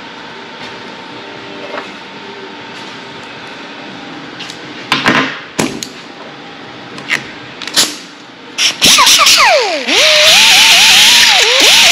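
Small pneumatic right-angle grinder on an air hose: a few short bursts as the trigger is blipped, then it runs continuously against the end of a steel tube, grinding the cut edge. Its whine drops sharply as it bites into the metal, then wavers up and down over a loud steady grinding hiss.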